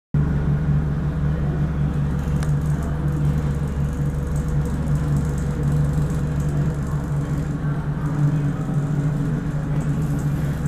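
Inside the passenger carriage of an ER2 electric multiple unit: the steady low hum and rumble of the train running, with a thin held whine above it.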